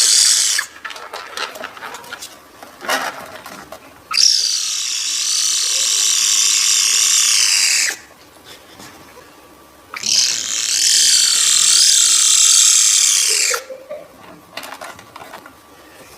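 A cat making long, high, wavering calls that sound like a sci-fi laser beam, each lasting three to four seconds, with short gaps of faint clicks and rustles between them.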